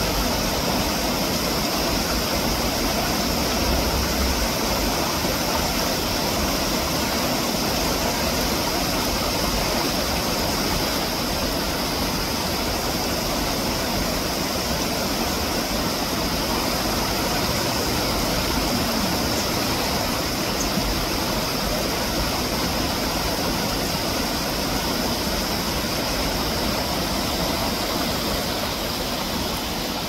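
Mountain stream water running steadily over small rock cascades, a continuous rushing hiss.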